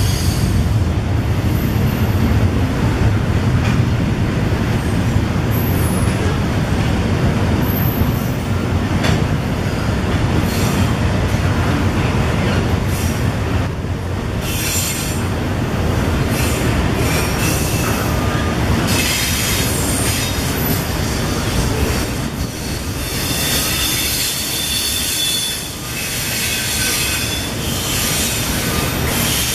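Double-stack container freight train rolling past: a steady low rumble of steel wheels on the rails, with high wheel squeal coming and going through the second half.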